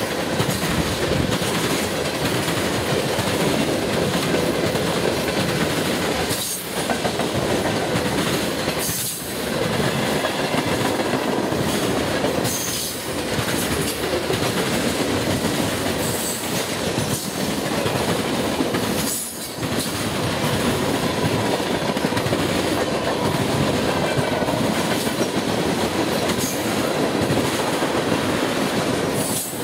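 Freight cars of a passing freight train (covered hoppers, boxcars and tank cars) rolling by close: a steady rumble and clatter of steel wheels on the rails, dipping briefly a few times.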